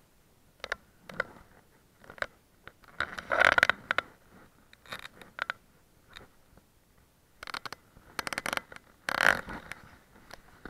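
Irregular scraping and crunching with scattered short clicks, loudest in short bursts about three and a half seconds in and again between about seven and a half and nine and a half seconds in.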